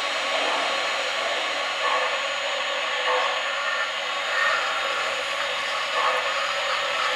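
O-gauge model trains on a three-rail layout: a steady rushing hiss that swells about every second and a half.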